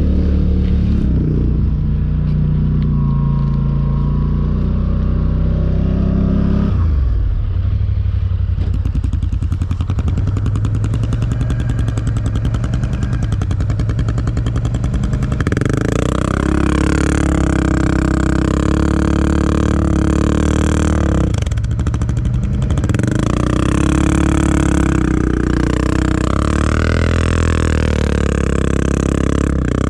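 Four-wheeler engines running and revving in deep snow, their pitch rising and falling as the throttle is worked. From about halfway in, a louder, higher revving joins in, typical of a machine struggling to get through the snow.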